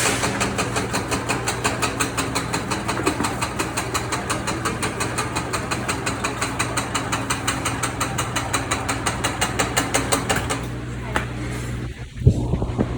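Electric fruit and vegetable dicing machine running: a steady motor hum under rapid, regular clacks of its cutting mechanism, about five a second. The clacking stops about ten and a half seconds in, and one sharp knock follows near the end.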